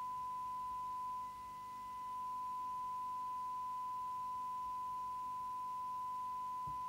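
Steady test tone from a Eurosonic ES40CB CB radio's speaker: the signal generator's modulation tone, demodulated by the receiver. It drops in level about a second in and climbs back as the detector coil is tuned for maximum audio.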